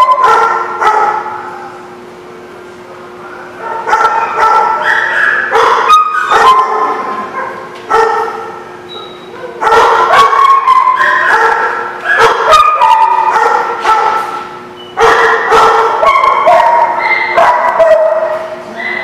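Dogs play-wrestling, with bursts of yips, whines and barks in four bouts broken by short pauses, over a steady low hum.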